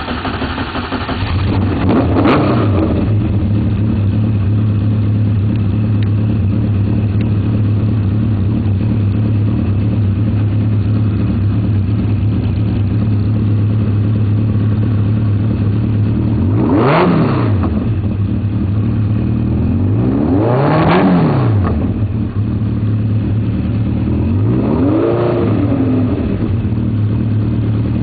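Hartley H1V8 2.6-litre V8 in a Caterham idling steadily, with short throttle blips that rise and fall in pitch: a small one about two seconds in, sharper ones around seventeen and twenty-one seconds, and a broader one around twenty-five seconds.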